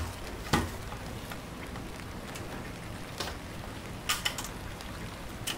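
Small model-excavator parts being handled and fitted by hand: a handful of light clicks and taps as plastic and metal pieces knock together, spaced irregularly, with two close together about four seconds in, over a steady low hiss.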